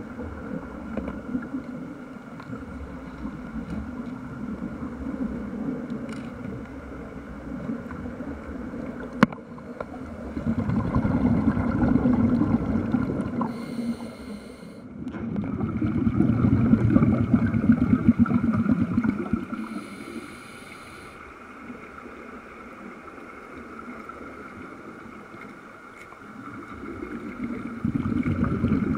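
Underwater recording of a Mark V diving helmet venting air: surges of bubbling swell up and fade over several seconds, three times, over a steady hum.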